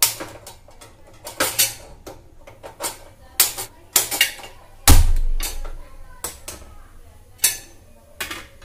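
A metal spoon clinking and tapping against a small bowl of beaten egg in irregular sharp clicks, with one heavier knock about five seconds in.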